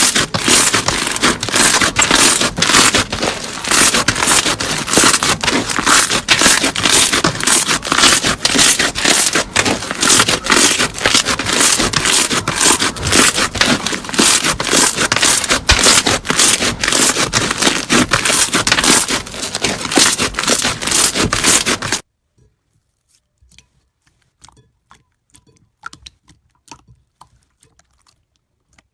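Slime being squeezed and worked by hand, giving a dense, loud run of small crackles and scraping. About three quarters of the way through it cuts off suddenly, leaving only faint scattered clicks.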